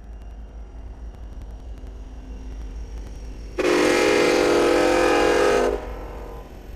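Locomotive horn sounding one blast of about two seconds, from a little past halfway, over the low rumble of an approaching train.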